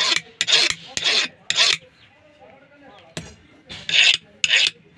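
A steel chisel being sharpened by hand: short rasping strokes, four in quick succession, a pause of about two seconds, then two more.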